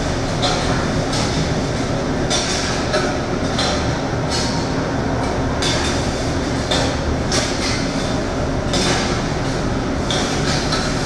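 Sound of a multi-screen video installation filling a gallery: a steady rumbling noise with repeated hissing surges every second or so, resembling a train in motion.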